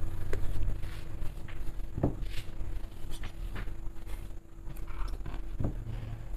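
Hand-stitching a coat: needle and thread drawn through heavy suiting fabric, with soft scattered rustles and ticks of the cloth being handled, over a faint steady hum.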